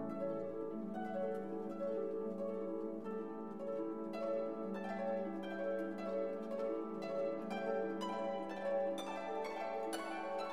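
Orchestral music: plucked-string notes over held lower tones, with new notes starting every fraction of a second.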